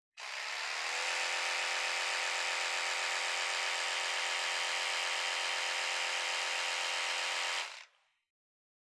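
Electric toothbrush running in the air, off the teeth, heard from about a metre away: a steady buzzing hum that switches on, settles within about a second, and cuts off after about seven and a half seconds.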